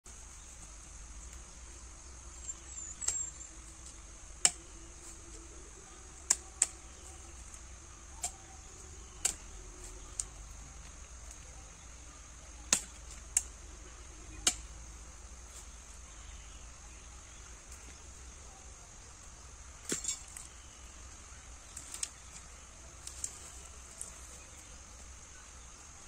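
Sheep feeding at a metal hay-and-fodder rack, with irregular sharp clicks and knocks about every one to two seconds, over a steady high-pitched background drone.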